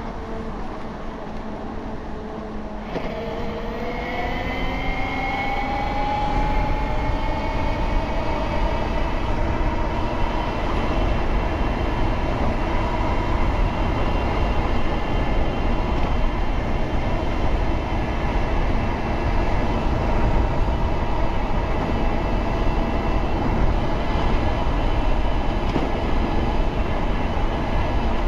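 72V BBSHD mid-drive e-bike motor whining as the bike gets under way. The whine starts about three seconds in, climbs in pitch over several seconds as speed builds, then holds near a steady pitch, with wind rumble on the microphone.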